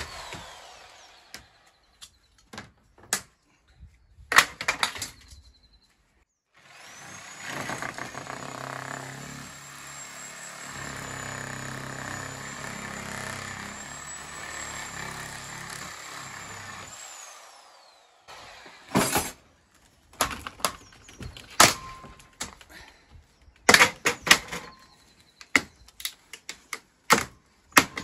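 A handheld power tool cutting through a UPVC conservatory frame. It spins up with a high whine about seven seconds in, runs steadily for about ten seconds, then winds down. A string of sharp knocks and cracks follows as the cut plastic frame sections are knocked apart and dropped.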